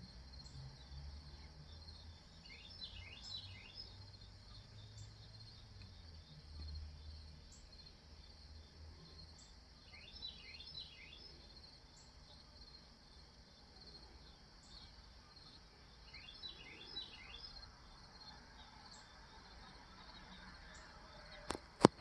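Insects chirping steadily in the background, with a bird calling in short runs of falling chirps three times, about seven seconds apart. Two sharp clicks near the end are the loudest sounds.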